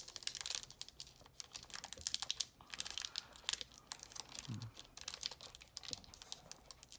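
Foil wrapper of a Pokémon booster pack crinkling and crackling in irregular bursts as it is gripped and pulled at. The pack is hard to tear open.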